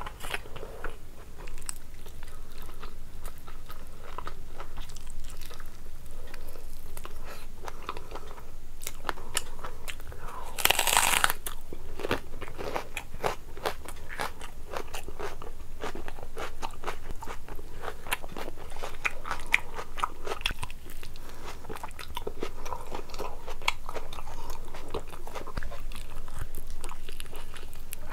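Close-up chewing and wet mouth sounds of a person eating mutton curry and rice by hand, with a loud crunchy bite into a raw red onion about eleven seconds in.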